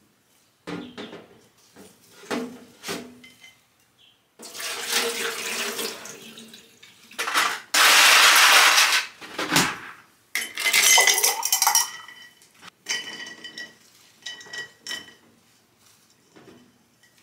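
A ceramic vase clinking and knocking against a kitchen sink, with the tap running in three bursts in the middle as the vase is rinsed and refilled with water.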